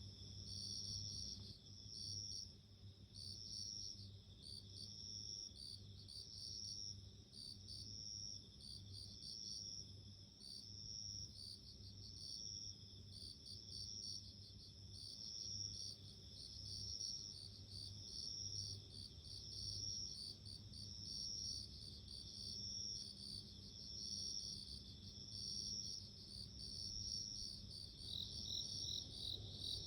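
Japanese bell crickets (suzumushi) singing: several overlapping ringing trills repeat about once a second, with fainter, higher insect chirps behind them and a low steady hum underneath.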